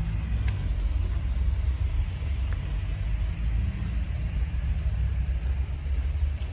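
Wind buffeting the phone's microphone in a snow storm: a steady low rumble that flutters constantly.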